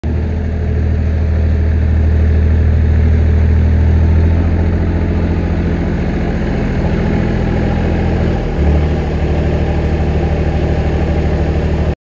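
Lombardini LDW 1503 three-cylinder diesel of a ProTrac MT8 mini-tractor running steadily, with a brief dip and change in tone about eight and a half seconds in.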